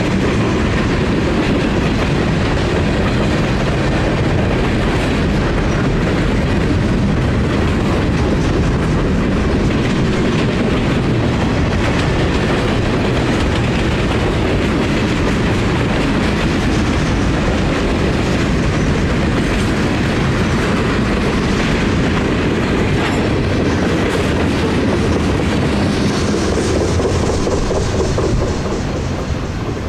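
Loaded freight cars of a manifest train rolling past, steel wheels clacking steadily over the rail joints under a loud rumble. Near the end the sound drops as the last cars pass and move away.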